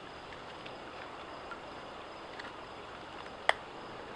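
A knife whittling wood, making faint light ticks, with one sharp click about three and a half seconds in, over the steady hiss of a small stream.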